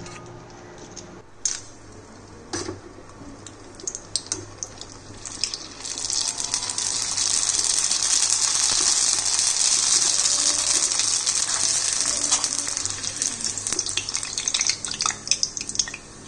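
Pani puri discs deep-frying in hot oil in an iron kadai. A dense, loud sizzle sets in about six seconds in and thins to scattered crackles near the end, after a quieter start with a few clicks.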